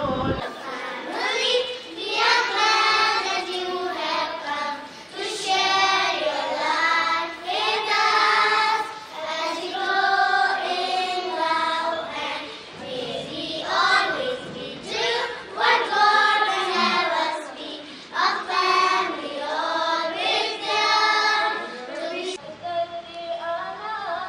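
A group of young girls singing a welcome song together into a microphone, phrase after phrase with short breaths between.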